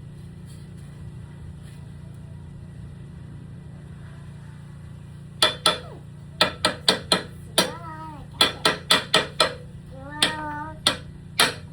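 Hammer blows on a ladder under repair: about fifteen sharp strikes at an uneven pace starting about halfway through, some ringing briefly, after a stretch of steady low hum.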